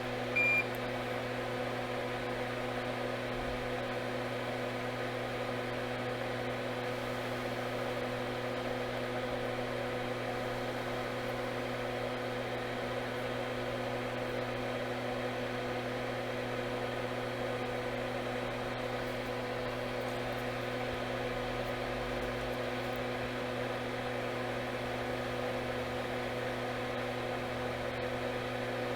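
Steady hum of a fume extractor fan running over the workbench, with one short, high electronic beep about half a second in.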